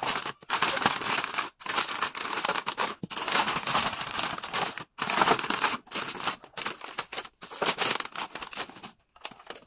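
Packaging being torn open and crinkled in repeated short bursts, as a new air-conditioner control board is unboxed.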